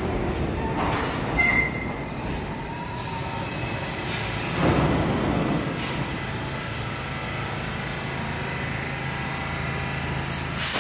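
New York City subway train sounds in the station. A rumble with a brief high squeal about a second and a half in, a swell of noise a few seconds later, then the steady low hum of an R68 train standing at the platform.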